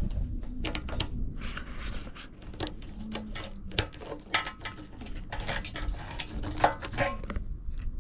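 Honda TLM220R's single-cylinder four-stroke engine idling: a low steady rumble with many irregular sharp clicks over it.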